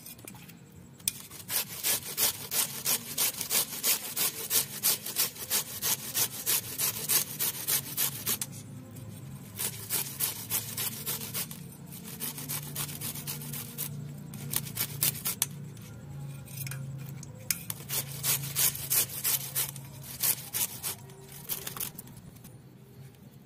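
Cauliflower being grated by hand on a grater: quick rhythmic rasping strokes, about two or three a second, in three runs with short pauses between.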